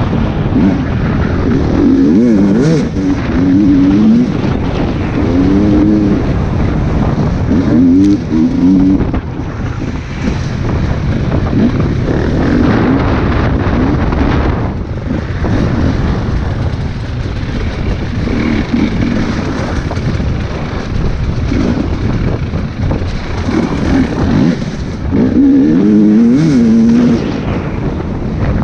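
Dirt bike engine ridden hard, heard from the rider's helmet: the revs swing up and down again and again with the throttle and gear changes, over a steady rush of wind and engine noise.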